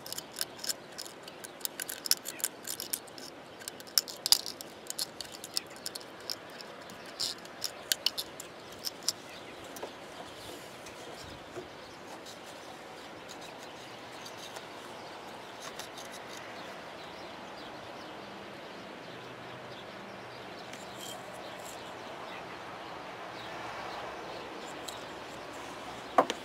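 Cotton swab and toothpick scrubbing grime out of the plastic connector sockets of a Meyer snowplow light module, giving a quick run of small scratches and clicks for the first several seconds. After that there is only a steady faint background hiss.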